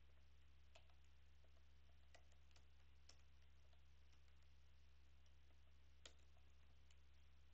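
Near silence with a few faint, scattered keystrokes on a computer keyboard, a word being typed, over a faint steady low hum.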